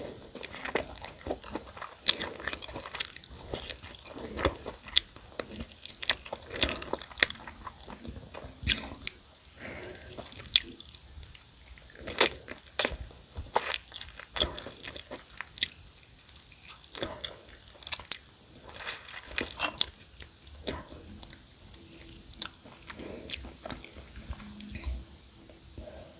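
Crunching bites and chewing of crispy fried chicken, a dense run of sharp, irregular crackles over the whole stretch.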